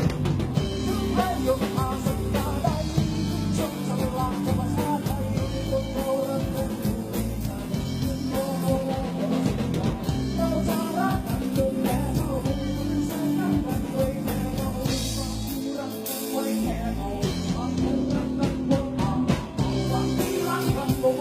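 Live band music with a singer: a voice singing over guitar, bass and drums keeping a steady beat.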